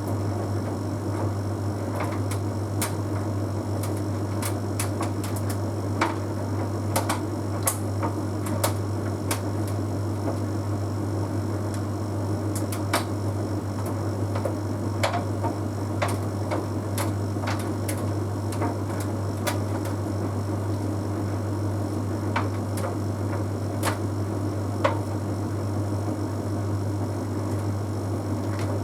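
Bosch Series 6 WQG245R9GB heat pump tumble dryer running mid-way through an Easy Care cycle: a steady low hum with irregular light clicks and ticks scattered throughout.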